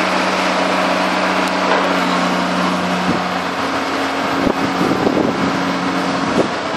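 A motor running steadily with a constant hum, with irregular knocks and rattles from about halfway through.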